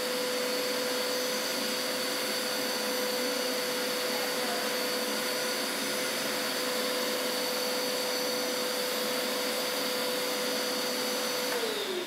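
Hoover Power Scrub Elite carpet cleaner's suction motor running steadily with a high whine, pulling through its hose and hand upholstery tool. Near the end it winds down, the pitch falling.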